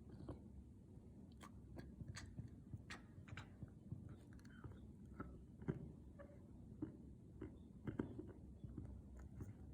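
Caracal chattering at birds, its hunting sound: soft, irregular clicks and smacks, with a couple of sharper clicks in the second half.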